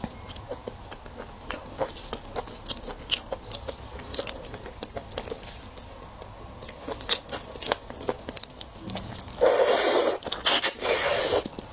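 Shell of a raw red devil shrimp cracking and peeling in gloved hands: a run of small clicks and crackles. About nine and a half seconds in, a loud wet sucking at the shrimp's head lasts about two seconds.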